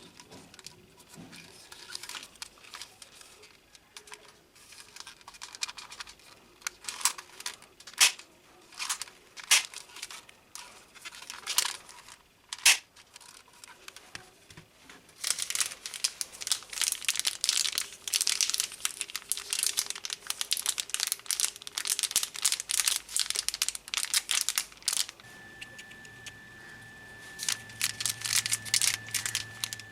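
Plastic packaging crinkling and tearing, with sharp clicks and snaps of handled plastic; the crackling thickens into a dense stretch past the middle. A faint steady high tone with a low hum comes in near the end.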